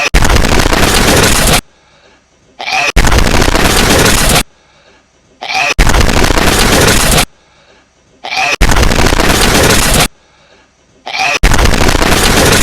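A hedgehog's sneeze played on a loop and boosted to full loudness. Each time, a brief high squeak leads straight into a loud, harsh blast of about a second and a half. It repeats about every three seconds, five times here.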